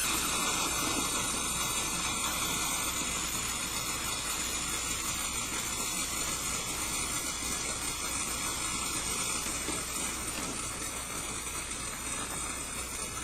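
Refrigerant hissing steadily as it is released from pressure onto a rose and evaporates, taking enough heat from the flower to freeze it; the hiss eases slightly near the end.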